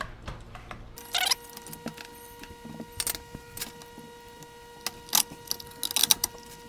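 Scattered light metallic clicks and clinks as a small wrench works a nut off the threaded post of a touch lamp's metal base, and the base and its wires are handled.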